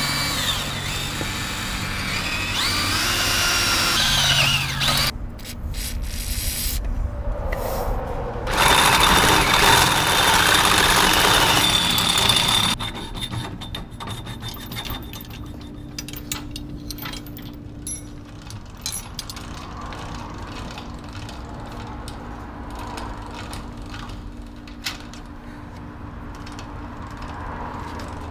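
Cordless drill boring through the steel jack post in two spells, the motor pitch rising and falling in the first and a louder, steadier run with a high whine in the second, about 8 to 13 seconds in. After that comes a quieter hand file rubbing over the drilled steel, with many small scattered clicks.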